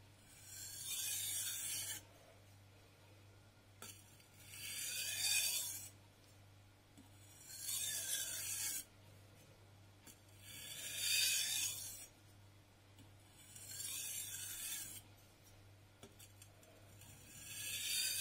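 VG10 nakiri blade scraping across a wet #800 grit SUEHIRO New Cerax whetstone in slow single strokes: six strokes, each under two seconds, about three seconds apart.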